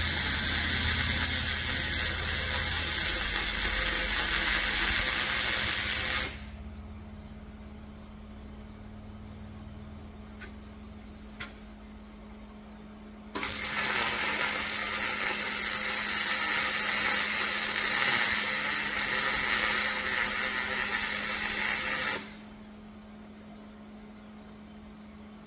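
Electric arc welding: two long runs of steady crackling hiss, one about six seconds and one about nine seconds, each cutting off abruptly when the arc stops. A faint steady hum runs underneath, with a couple of small clicks in the gap between the welds.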